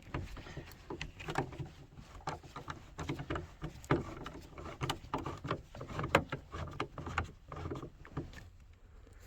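Phillips screwdriver working screws out of a minivan's door trim panel: a string of small irregular clicks and scrapes of metal on plastic, a few a second.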